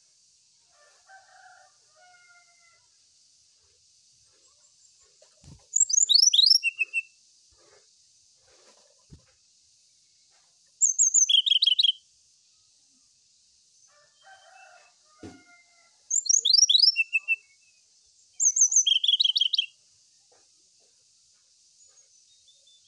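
Brown-chested jungle flycatcher singing: four loud, high-pitched phrases of quick falling whistled notes, each about a second long and a few seconds apart. A few faint knocks fall between the phrases.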